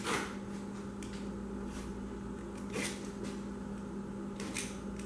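Utility knife cutting through the gasket at the corners of a toaster's sheet-metal panel: a few faint, short scrapes over a steady low hum.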